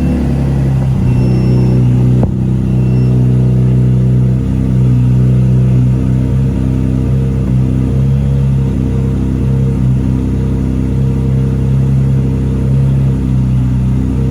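Supercharged 2013 Cadillac CTS 3.6-litre V6 idling steadily just after starting. It is running with fuel trims in the high negative double digits, which the owner suspects is caused by a vacuum leak.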